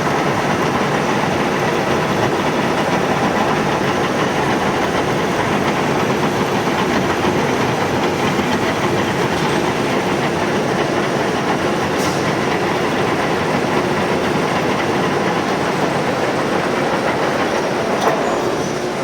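Milling machine cutting a metal flange: the cutter's steady, dense chatter against the metal, with faint steady tones over it.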